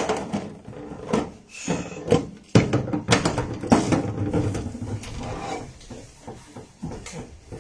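Kitchen clatter of dishes and utensils being handled at a sink: irregular knocks and clicks, with a few sharper knocks about a second and a half in and again around three seconds in.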